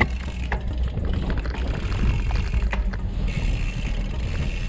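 Gravel bikes rolling over a cattle grid and on along a tarmac lane. A sharp clatter at the very start and a few clicks in the first seconds come over a steady low rumble of tyres and wind.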